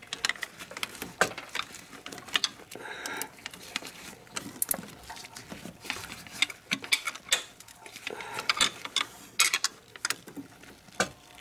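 Hand ratchet clicking in short, irregular bursts as it loosens the water pump pulley bolts.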